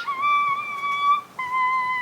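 High whistle-like notes held about a second each, stepping down in pitch from one note to the next like a simple tune.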